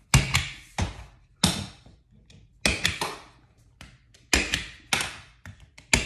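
Desk stapler, opened out flat and used as a tacker, driving staples through paper into a board: a series of sharp clacks, about seven, a second or so apart.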